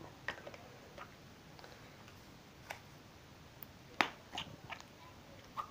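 A few sharp plastic clicks and taps from handling a small pot of fart putty, spread out with quiet between them, the loudest about four seconds in.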